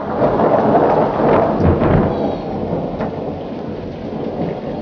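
Cartoon earthquake sound effect: a loud, deep rumble of shaking ground with a few sharp cracks, strongest in the first two seconds and easing off after.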